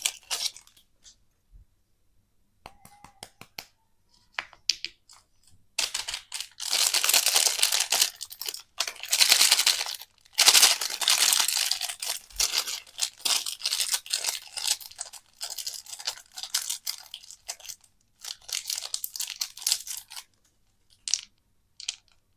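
Candy wrapper packaging being torn open and crinkled, in irregular spells of tearing and rustling a few seconds long with short pauses between.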